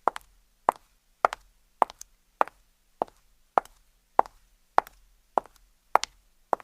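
High-heeled shoes walking at an even pace on a hard floor, about eleven steps with each step a sharp heel click followed closely by a softer toe tap.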